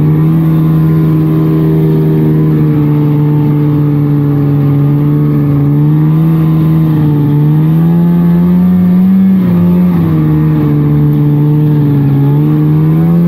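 1999 Polaris trail snowmobile's two-stroke engine running under way at a steady cruising speed, its pitch climbing a little about eight seconds in and easing back about two seconds later.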